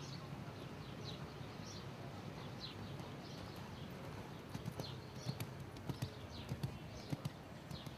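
Hoofbeats of a horse cantering on sand arena footing. They become distinct knocks about halfway through as the horse passes close. Birds chirp throughout.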